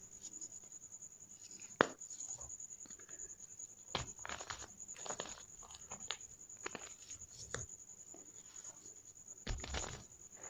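Gym chalk balls crunching and crumbling as they are crushed, in irregular bursts. There is one sharp snap about two seconds in.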